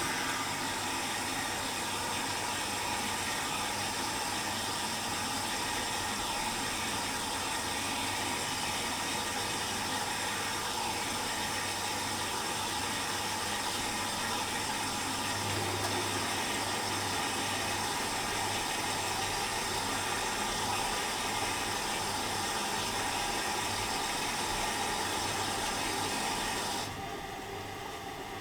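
Privileg Dynamic 4612 washing machine filling with water at the start of a 60°C colour wash: a steady hiss of water running in through the inlet valve, which drops and gets quieter near the end.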